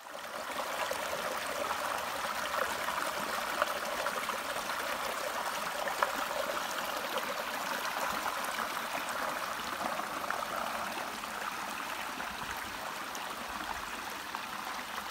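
Shallow rocky creek running: a steady rush of water over stones, with two faint clicks in the first half.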